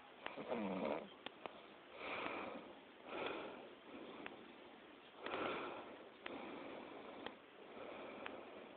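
A sleeping person snoring: a run of noisy breaths, in and out, about one every second or so, the first with a low pitched buzz and the rest mostly breathy. A few faint clicks fall between the breaths.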